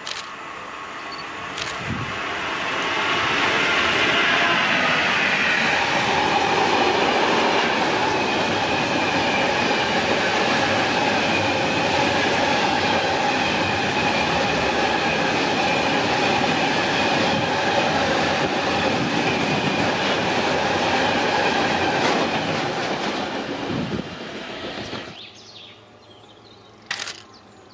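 A train passing on the line. The noise builds over about four seconds and stays loud for nearly twenty, with steady tones over the rush of wheels on rail, then fades and drops off sharply about 25 seconds in.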